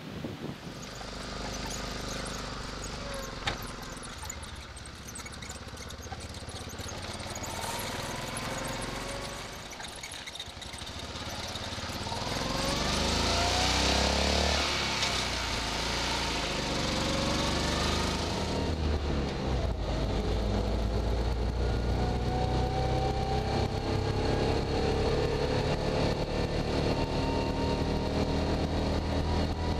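BMW Isetta's single-cylinder engine running, faint at first and louder about twelve seconds in, with a loud hiss for several seconds as the engine pitch rises. It then settles into steady driving heard from inside the small cabin, its pitch climbing again at intervals.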